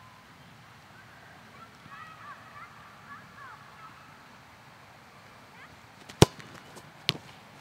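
A soccer ball kicked hard, a sharp thud about six seconds in, followed about a second later by a second, quieter smack as the ball reaches the goalkeeper. Before it, birds call faintly in short, curving honks.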